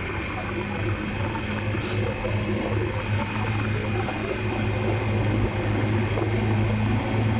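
Scooter engine running at a steady speed while riding, an even drone with no change in pitch.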